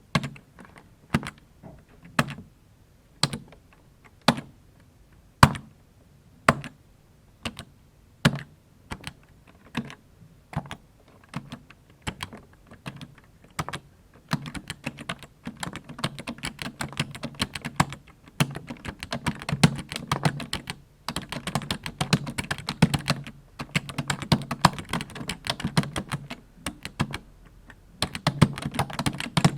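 Typing on a computer keyboard: single, separate keystrokes about one a second for roughly the first half, then fast continuous typing with a few short pauses.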